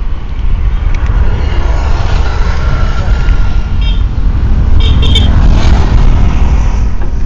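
Strong wind blowing across the microphone in a heavy low rumble, with road traffic passing. Two short high horn toots come about four and five seconds in.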